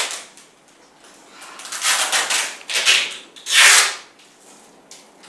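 A long strip of paper handled by hand, giving a run of rough rustling strokes from about one and a half seconds in until about four seconds, the last stroke the loudest.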